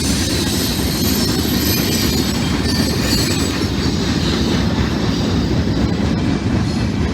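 Train cars rolling past on the rails: a loud, steady rumble of wheels on track.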